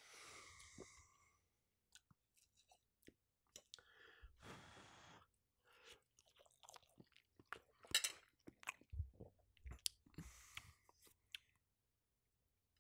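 Faint close-up chewing of a shrimp omelette, soft wet mouth sounds with scattered small clicks and smacks, busiest in the last few seconds.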